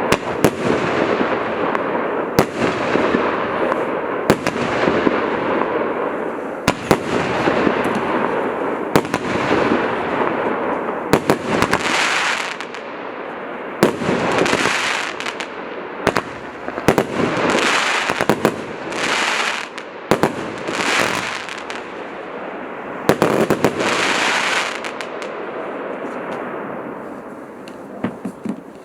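Celtic 'Bill' 70-shot firework cake firing: sharp bangs over a steady rushing noise for the first dozen seconds, then separate noisy bursts about a second long with short gaps between them, dying away near the end.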